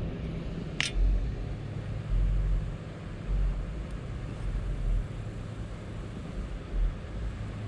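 Wind buffeting the microphone in uneven low gusts over a steady low hum, with one short high chirp about a second in.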